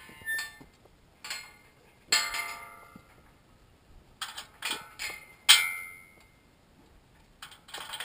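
Irregular sharp metallic clinks and knocks, some ringing briefly, the loudest about five and a half seconds in.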